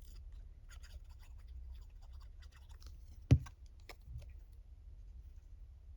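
Paper pieces being handled and pressed down on a craft table: faint scratchy rustling and small ticks, with one sharp knock a little after three seconds in.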